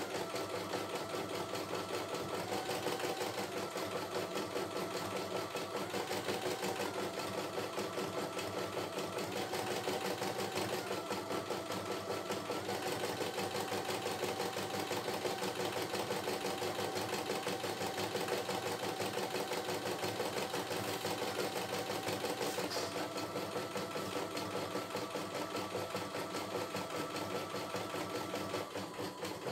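CNY E960 computerized embroidery machine stitching a design: a fast, even needle chatter with a steady whine that shifts in pitch every few seconds.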